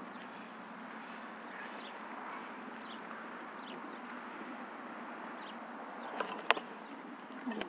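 Outdoor ambience: a steady background hiss with faint, short falling bird chirps about once a second, and a couple of sharp clicks about six seconds in.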